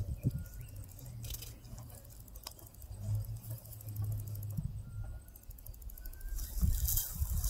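Cheetah feeding on a carcass, chewing and tearing at the meat with irregular crackling and crunching clicks.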